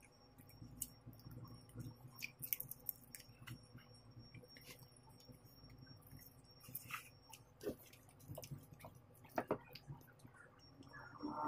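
Faint eating sounds: chewing and finger-licking, with scattered small clicks and crackles as shrimp are peeled by hand.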